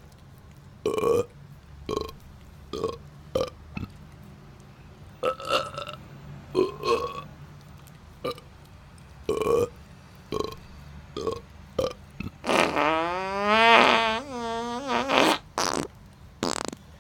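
A long run of burps: about fifteen short burps, then one long drawn-out burp rising in pitch about twelve seconds in, followed by a few more short ones.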